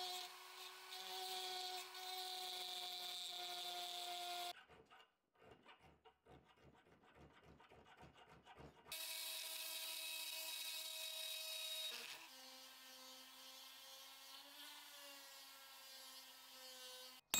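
Small handheld rotary tool whining steadily as it grinds out the bore of a steel pommel held in a vise. From about four and a half seconds to nine seconds comes a run of quiet, rhythmic hand-file strokes on the steel. Then the rotary tool runs again, at a lower pitch from about twelve seconds.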